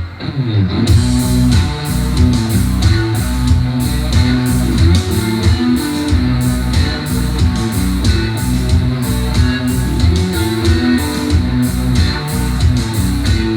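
Guitar-led rock music with bass and a steady beat, played back through Edifier 1280 speakers driven by an FX Audio Tube 03 tube preamp for a sound test.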